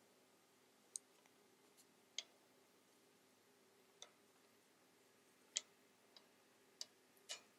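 Wooden knitting needles clicking faintly as stitches are worked: about seven short, irregular clicks over a quiet room with a faint steady hum.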